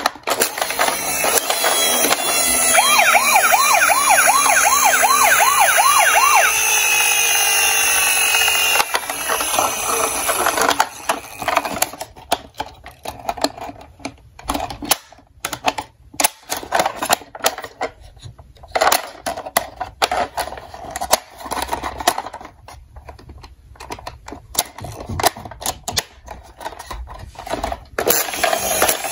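Toy ambulance's electronic siren sounding for about eight seconds, with a fast up-and-down wail in the middle, then stopping. After that come intermittent plastic clicks and knocks as the toy is handled and its door opened.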